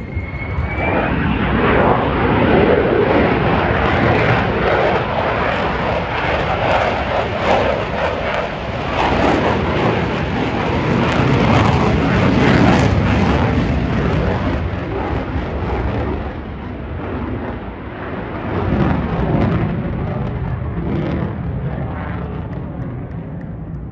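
F-35C Lightning II jet fighter's Pratt & Whitney F135 turbofan passing in a loud, rushing, crackling jet noise that builds over the first couple of seconds, peaks about halfway through, then fades away, with a short swell again near the end.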